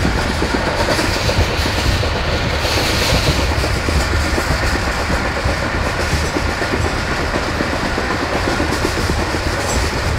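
Tezgam Express passenger train running along the track, heard from on board: a steady low rumble with a continuous clatter of carriage wheels on the rails.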